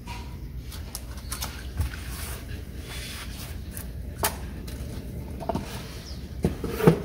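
Cardboard box being handled as a pair of high-heeled shoes is packed into it: rustling of the box flaps with scattered knocks, a louder knock near the end.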